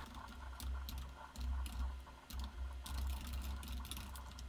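Typing on a computer keyboard: a run of irregular, quick key clicks.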